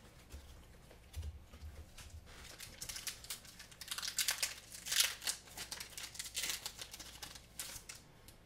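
Foil wrapper of a Pokémon Scarlet & Violet booster pack crinkling and tearing as the pack is opened: an irregular run of crackles and rustles, loudest about halfway through.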